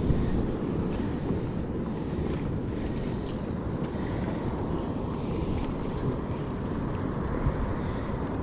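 Steady wind rumble on the microphone over the wash of the sea and surf breaking around the kayak.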